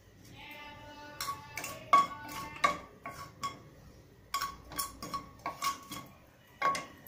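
Mustard seeds popping and spluttering in hot oil inside an aluminium pressure cooker during tempering, giving irregular sharp pops and ticks against the metal. The pops start about a second in, are loudest about two seconds in, and go on until near the end.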